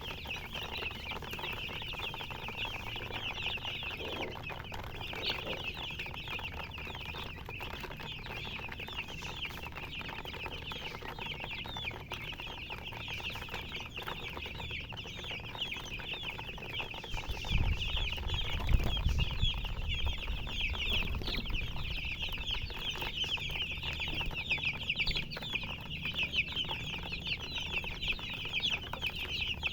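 A brood of chicks peeping nonstop, many short high chirps overlapping into a dense chatter. A low rumble comes in for a few seconds a little past the middle.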